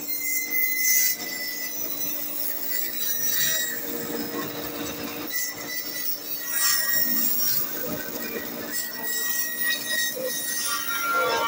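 Bandsaw running and cutting lengthwise along a softwood board as it is pushed through by hand: a steady machine hum with rasping that swells and eases as the blade bites into the wood.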